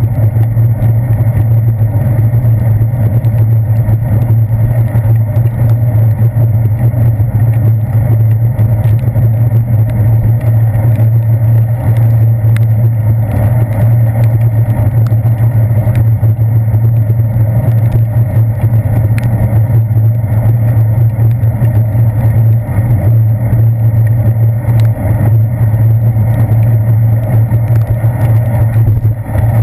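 Steady low rumble of a bicycle riding on wet pavement, heard through a handlebar-mounted GoPro Hero 2 in its waterproof housing: wind and road vibration, with traffic noise mixed in.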